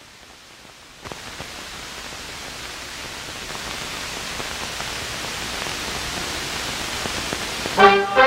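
Steady hiss with scattered faint crackles from an old film soundtrack, stepping up about a second in and then growing slowly louder. Brass music comes in just before the end.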